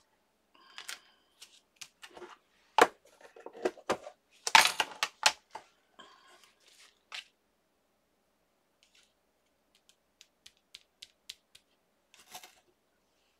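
Craft supplies being handled on a tabletop: a clear plastic pack knocked and set down and a metal tin opened, with sharp knocks and a clatter about halfway through, the loudest moment. Light ticks and a brief rustle follow as ribbon and fabric rolls in the tin are sorted.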